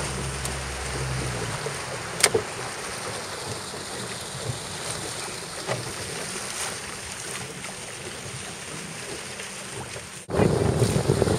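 Wind and choppy water splashing around a small boat, an even rushing noise with a low hum in the first second or so and a few light knocks. About ten seconds in it turns suddenly louder, with wind buffeting the microphone.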